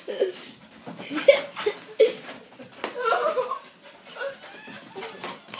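Small dog making a string of short, pitched calls during excited play, with a busier run of calls about three seconds in.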